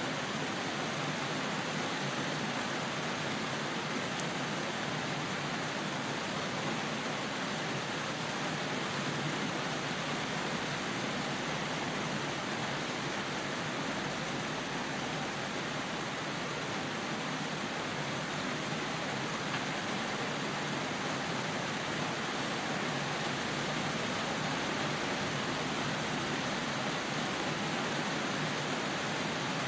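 Steady rain falling, an even hiss that holds at one level with no thunderclap.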